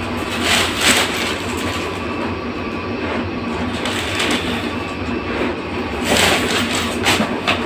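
Plastic packaging rustling and crackling in short bursts, about half a second in and again from about six seconds, over a steady low hum.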